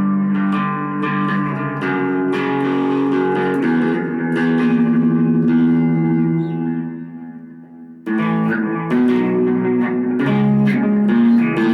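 Guitar music played through effects: picked chords ring on, fade away about seven seconds in, then the playing starts again abruptly about a second later.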